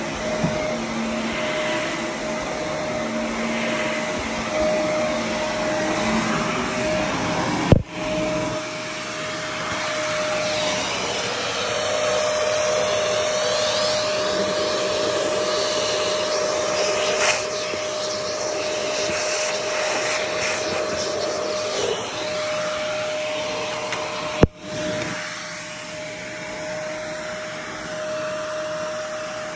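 Corded bagless upright vacuum cleaner running on carpet: a steady motor whine over the rush of suction. Two sharp clicks interrupt it, one about a quarter of the way in and one near the end.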